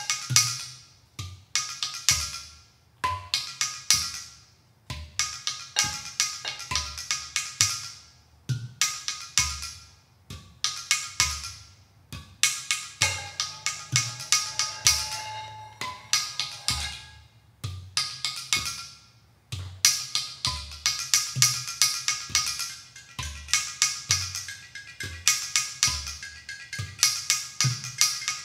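Ceramic percussion: sticks clicking quick rhythmic patterns on hand-thrown clay pots and bowls, over deep hand-struck thumps from large clay pot drums. The playing comes in short phrases with brief gaps between them.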